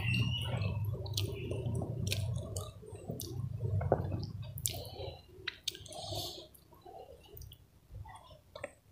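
Close, wet eating sounds, chewing and mouth smacks with scattered sharp clicks, while fingers pick at grilled pomfret and rice.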